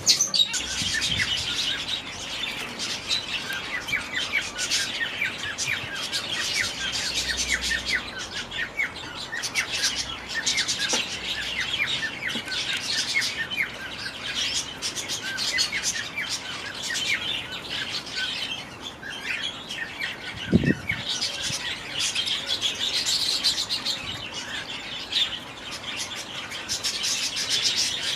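A flock of small aviary finches chirping continuously, many short calls overlapping. There is one brief low thump about two-thirds of the way through.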